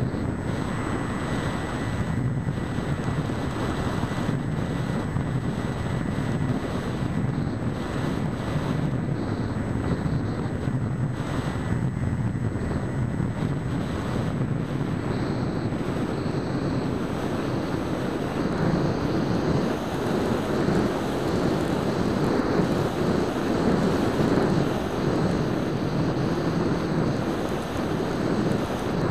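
Wind rushing over the onboard camera's microphone of a flying EasyStar 2 foam RC plane. Under it is the steady drone of its electric motor, a 1400kv motor turning a 7x6 pusher propeller. The sound grows a little louder past the middle.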